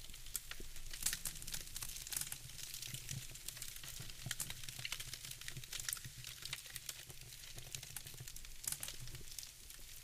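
Log fire crackling in a fireplace: irregular sharp pops and snaps, several a second, over a low steady rumble.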